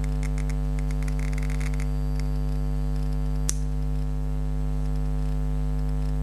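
Homemade Geiger counter clicking as its tube detects radiation, with each click one count. A quick run of clicks comes in the first two seconds, then a single sharp click about three and a half seconds in. A steady electrical hum runs underneath.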